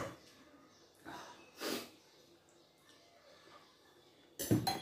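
Short breathy sniffs and eating noises, then just before the end a brass serving bowl knocks against the brass thali plate with a sharp clink and a brief metallic ring.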